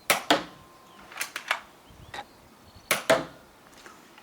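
Sharp plastic clacks and snaps from a Nerf foam-dart blaster being worked and fired, several coming in quick pairs.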